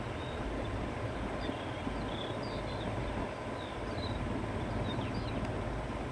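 Wind blowing across open countryside, a steady rushing with a low rumble, while birds chirp faintly in short calls in the background.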